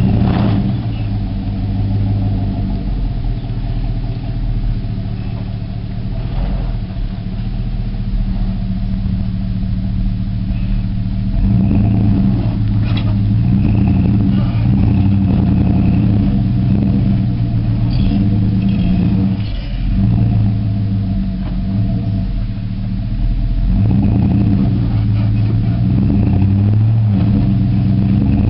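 Chevrolet Silverado pickup's engine running under load and revving as the truck climbs loose gravel, louder about a third of the way in and again near the end, with its rear wheels spinning and throwing gravel.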